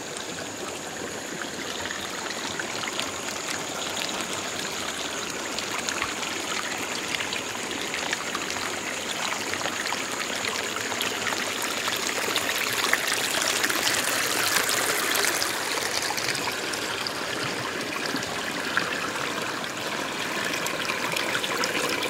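A small rocky forest stream flowing and splashing, a steady rush of water that grows slightly louder over time. A thin, steady high tone sounds over it through roughly the first half.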